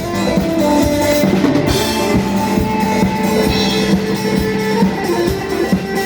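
Loud music with drum kit and guitar, played over a PA sound system that is being checked.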